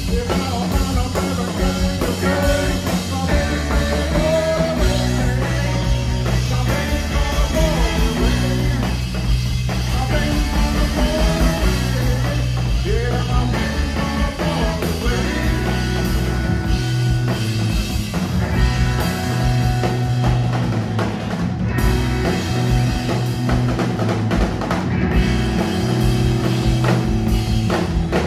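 Live rock band playing: electric guitar, electric bass and a drum kit.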